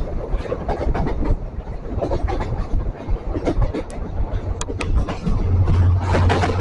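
Goa Express passenger train running along, its wheels clicking over rail joints at an uneven beat over a steady rumble. A low, steady hum joins in about five seconds in.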